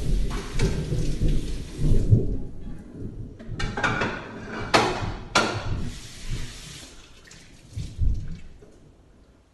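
Thunder rumbling, with a few sharper cracks about four to five and a half seconds in, dying away near the end.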